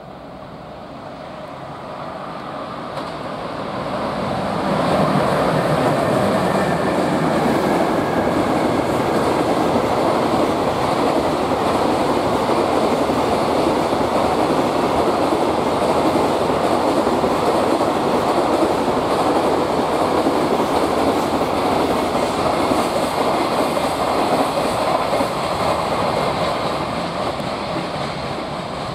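Container freight train hauled by an EH500 electric locomotive passing through without stopping, its wheels running over the rails in a steady rush. It grows louder over the first five seconds, holds steady as the wagons go by, and eases off a little near the end.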